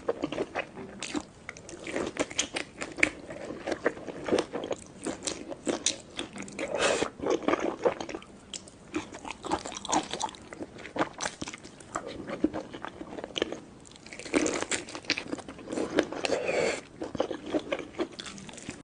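Close-miked eating: repeated crunchy bites and chewing, a steady run of crisp crackles with louder stretches about a third of the way in and again near the end.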